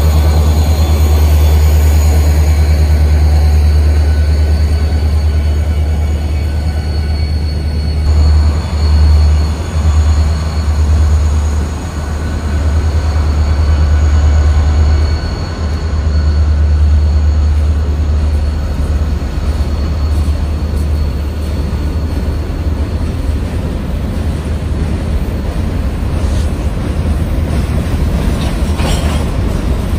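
Freight train passing, led by EMD SD40-2 diesel locomotives: a loud, steady deep rumble of the diesel engines and the train rolling on the rails.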